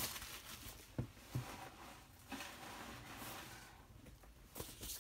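Faint rustling and a few soft knocks as a cardboard Blu-ray box is handled.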